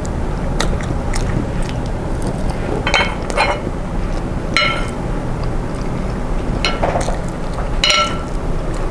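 Close-miked chewing of spiced catfish with rice and raw vegetables, with about eight short wet smacks and crunches at uneven intervals. A steady low hum runs underneath.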